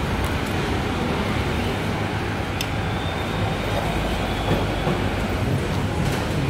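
A steady low rumble of background noise, with a few light clinks of metal cutlery against plates and dishes.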